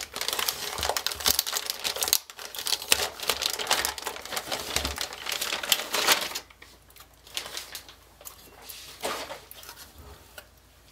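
Metallized anti-static shielding bag crinkling and rustling as a motherboard is pulled out of it by hand. The crinkling is dense for about six seconds, then drops to a few brief, softer rustles.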